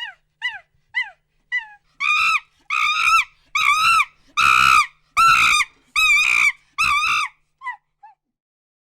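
Monkey calling: a quick run of short hoots, each dropping in pitch, builds about two seconds in into a series of about seven loud screams, each about half a second long, rising and then falling in pitch. It ends with two short calls.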